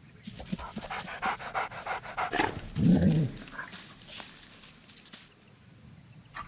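Dingo panting and sniffing at close range, with one short low growl about three seconds in; it goes quieter near the end.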